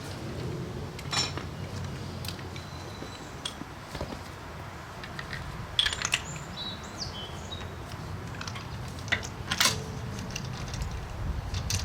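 Scattered sharp metallic clinks and taps of tools and brake parts being handled during a front brake pad change, about five or six separate knocks with a brief high ringing note around the middle, over a low steady hum.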